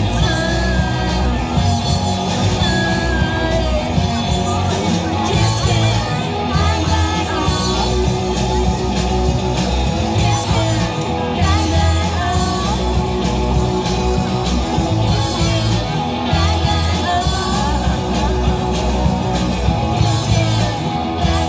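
Live rock band playing a song: electric bass, electric guitar and a drum kit keeping a steady beat, with a woman singing into a microphone.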